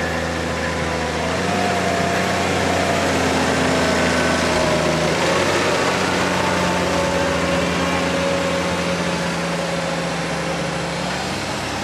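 New Holland tractor's diesel engine running hard under load, dragging a weighted pulling sled. It is a steady, loud drone that gets a little louder about a second and a half in, with only slight shifts in pitch.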